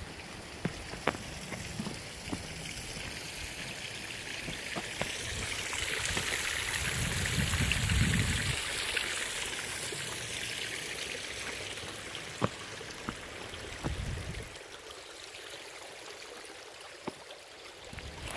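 Running stream water, a steady rushing hiss that swells to its loudest in the middle and then fades, with footsteps and scattered clicks of boots on the path and brushing through grass.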